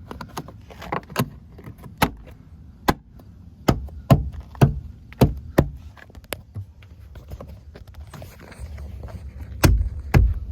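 Metal trim clips being pushed back into plastic trim and the car body: a string of irregular sharp clicks and knocks, with a louder quick cluster near the end.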